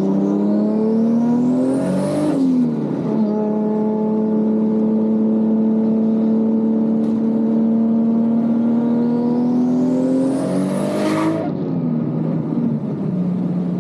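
Toyota 2JZ-GTE turbocharged inline-six in a Mk IV Supra pulling hard under full throttle. The revs climb with a high turbo whistle rising alongside and drop about 2 s in. The engine then runs a long, slowly rising pull, and the whistle climbs again before the revs fall away about 11 s in.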